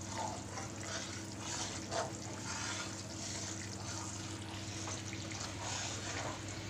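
Wheat flour roasting in hot ghee in a kadhai, bubbling and popping while a perforated ladle stirs and scrapes through it, over a low steady hum. The flour is being roasted toward light brown for gond laddu.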